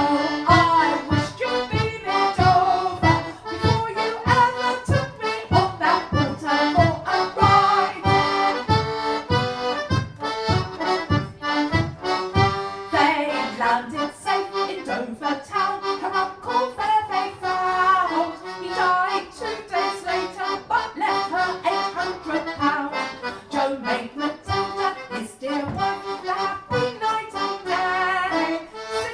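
Four-stop one-row melodeon playing a lively dance tune, the melody over a steady bass beat of about two strokes a second. About halfway through the bass drops out and the melody carries on alone.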